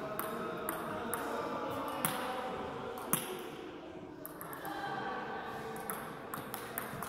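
Table tennis ball clicking in scattered, irregular single bounces on the table and bat, the loudest about three seconds in and several close together near the end, over a low steady hall murmur.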